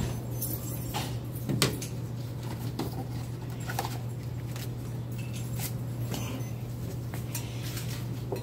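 Gloved hands handling small plastic items on a table: scattered light clicks, taps and rustles, with one sharper knock about a second and a half in, over a steady low hum.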